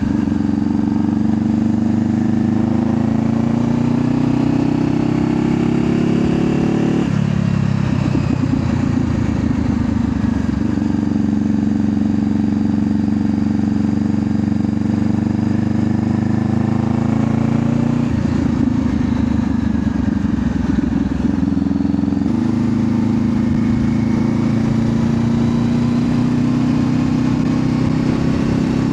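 Honda CBR500R's parallel-twin engine under way. The revs climb, drop sharply with an upshift about a quarter of the way in, then hold steady at cruise, with further shifts in pitch about two-thirds and three-quarters of the way through.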